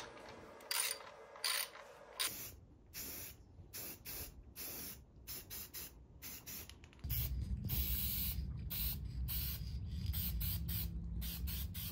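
Aerosol spray paint can spraying metal go-kart brackets in many short hissing bursts, one after another. A steady low rumble joins them about seven seconds in.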